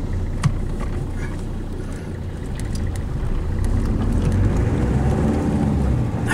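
Engine and road noise heard from inside the cab of a moving pickup truck: a steady low rumble that grows a little louder about halfway through as the truck pulls away, with a few faint clicks.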